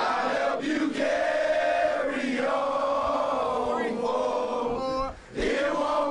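A large group of Auburn football players singing together in unison in a slow, drawn-out way, holding long notes, with a short pause for breath a little after five seconds.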